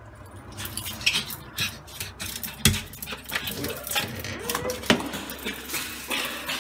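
A pug's claws clicking and scrabbling on a tiled floor as it runs and spins, with a few louder knocks, the loudest about three and five seconds in.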